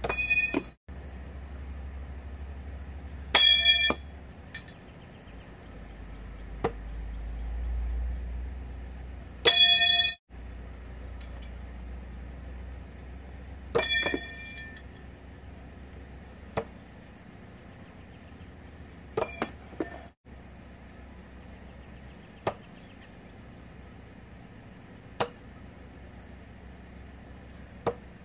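Throwing knives striking a wooden log-round target: four loud strikes with a bright metallic ring, several seconds apart, and a handful of fainter clicks between them.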